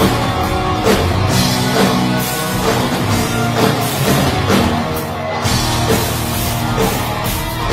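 Heavy metal band playing live: electric guitars, bass and a drum kit, with steady, regular drum hits.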